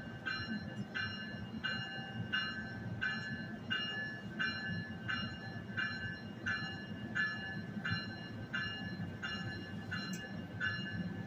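Train warning bell ringing steadily, about three strokes every two seconds, over the low rumble of an NJ Transit bi-level commuter train moving through the station.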